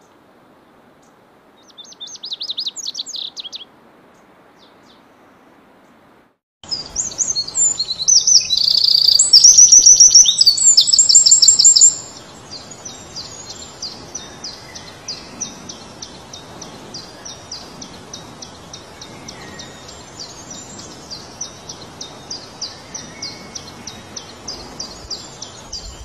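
A short, high song phrase from a lazuli bunting about two seconds in. Then the loud, rapid trilling song of a wren, loudest for about five seconds, running on as a quieter, fast, even series of high notes.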